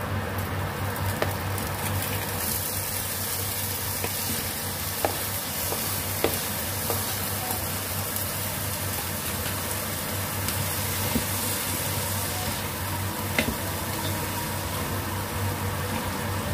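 Diced tomatoes sizzling in hot oil in a nonstick saucepan, the sizzle picking up a couple of seconds in as they go into the pan, with a few light clicks of a bamboo spatula against the pan as they are stirred. A low steady hum runs underneath.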